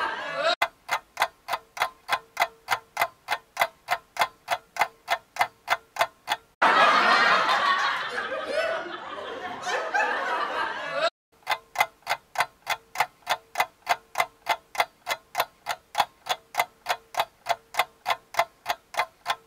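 Ticking-clock sound effect, an even run of sharp ticks at about four a second over a faint steady tone. It stops about six and a half seconds in for a burst of laughter of about four and a half seconds, then resumes.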